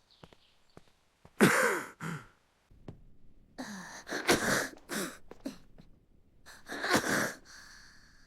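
A person coughing in three bouts, about a second and a half in, around the middle, and near the end, each made of sharp, hoarse coughs with some voice in them.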